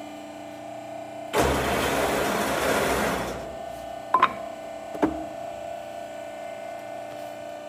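Wood door assembly machine humming steadily, with a loud rush of noise lasting about two seconds starting about a second and a half in, followed by two sharp clicks or knocks about a second apart.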